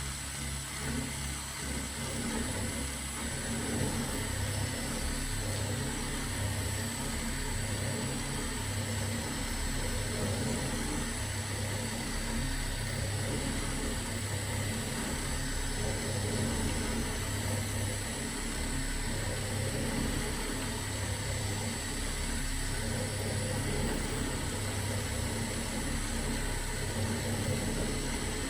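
Home-built CNC milling machine running its first test, with a steady high whine and a low pulse repeating about every one and a half seconds.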